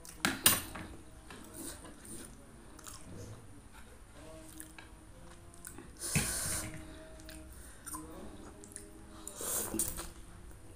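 Mukbang eating sounds: cutlery clinks against a plate near the start, a fork scrapes into the noodles about six seconds in, and instant noodles in broth are slurped near the end, with chewing between.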